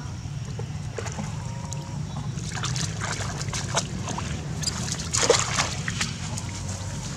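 Macaques wading and stepping through shallow muddy water: a run of short splashes and sloshes from about two and a half seconds in to about six seconds in, the loudest a little past five seconds, over a steady low hum.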